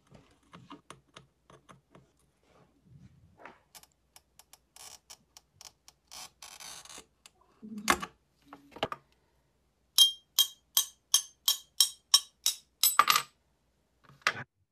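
A hand glass cutter scoring blue sheet glass on a plastic grid cutting board with a scratchy rasp, and a sharp knock about eight seconds in. Then comes a quick run of about a dozen sharp, ringing taps, three or four a second, as the ball end of the steel cutter is tapped along the score line to run the break.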